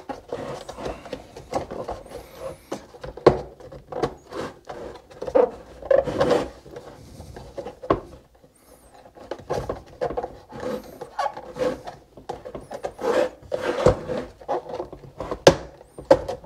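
Irregular rubbing, creaking and knocking of a KTM 250 SX's air intake boot being pushed and worked by hand into the bottom corner of the plastic air filter box, with a few sharp knocks.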